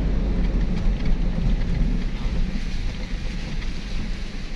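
Vehicle driving on a rough, unpaved mountain road: a steady low rumble of engine and road noise with wind buffeting the microphone, easing slightly near the end.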